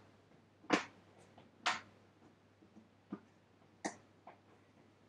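A few sharp clicks and knocks of the plastic fermenting bucket and its lid being handled. The two loudest come in the first two seconds, then three fainter ones between about three and four and a half seconds in.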